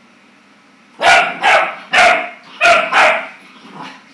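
Clumber spaniel puppy barking at its own reflection: five sharp barks in quick succession starting about a second in, then a fainter sixth near the end.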